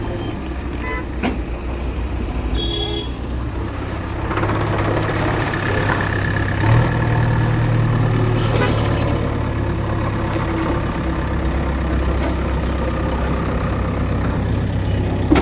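A heavy vehicle's engine running steadily with a low hum, growing louder about four seconds in.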